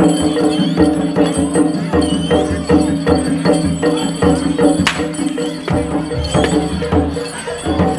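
Live Bantengan accompaniment music: quick, regular drum strokes over sustained ringing tones. About five seconds in, a single sharp whip crack cuts through, the pecut cracked to lead the Singobarong dancer.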